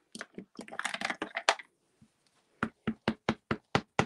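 A clear acrylic stamp block dabbed down onto a Memento ink pad to ink the stamp: a quick run of about seven sharp knocks, some five a second, near the end. Before it comes a second or so of clicking and handling of the pad and block.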